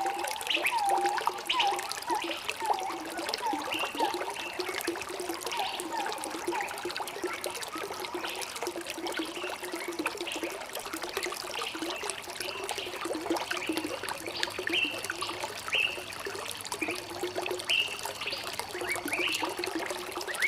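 Shallow stream trickling and gurgling over stones, with short bubbling plinks, and brief bird chirps above it now and then.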